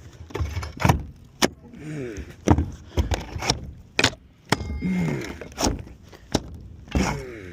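Roof tear-off: repeated sharp knocks and cracks as old roofing and wood decking are pried and broken up, with short creaking squeals between the blows.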